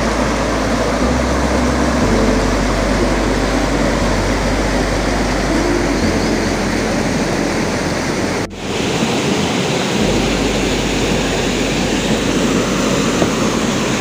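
Steady, loud rush of a waterfall close by, an even roar of falling water. It breaks off for an instant about eight and a half seconds in, then carries on unchanged.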